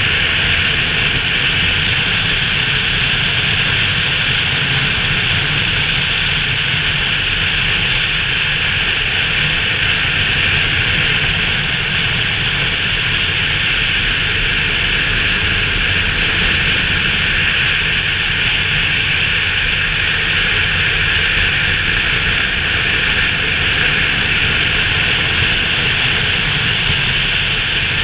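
Steady wind rush over the microphone on a moving motorcycle, with the low drone of a BMW R 1200 GS flat-twin engine holding an even cruise underneath.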